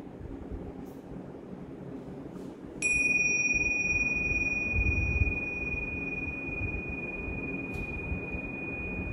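Tingsha cymbals struck together once about three seconds in, giving a clear high ring that sustains and slowly fades, its higher overtones dying away first.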